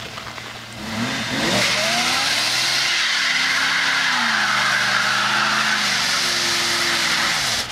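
Ford Mustang convertible doing a burnout: the engine revs up about a second in and is held at high revs, wavering, while the rear tyres spin and squeal. The revs drop away suddenly near the end.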